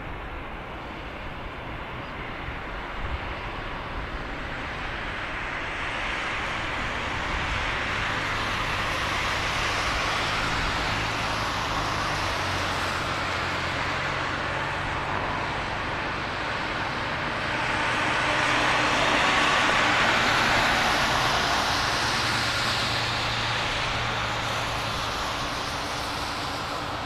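Jet engine noise from a Boeing 747-400 freighter's four engines on landing approach, a broad rushing sound that swells as the aircraft nears and is loudest about two-thirds of the way through.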